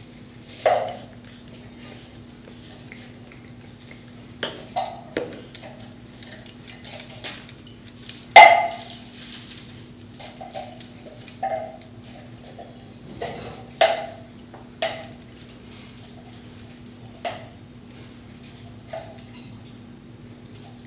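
A dog barking now and then, single short barks at irregular intervals, the loudest about eight seconds in, over a faint steady hum.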